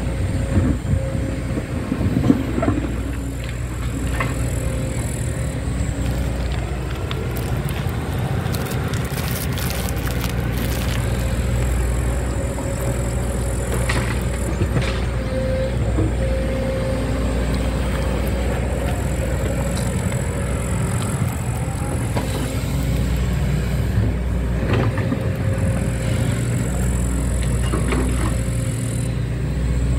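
Diesel train engine running steadily: a low rumble with a steady whine over it, and a few short knocks in the first seconds.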